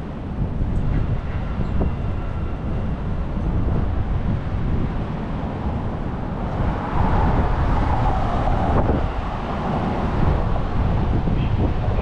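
Wind rumbling on the microphone while riding a bicycle through city traffic, with a vehicle passing close by about seven seconds in.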